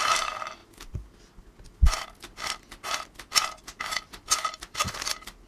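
Makhana (puffed lotus seeds) dropped and handled by hand in a kadai: a soft rustle at first, a dull knock about two seconds in, then a run of light, crisp clicks and crackles several times a second.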